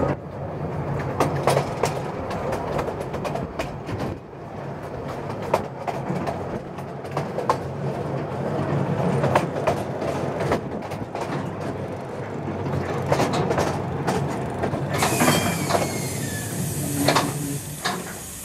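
Small narrow-gauge train running along its track, heard from an open car: wheels clicking and knocking over the rail joints over the steady low drone of its diesel locomotive. Near the end a hiss comes in with a brief, falling wheel squeal as the train takes a curve.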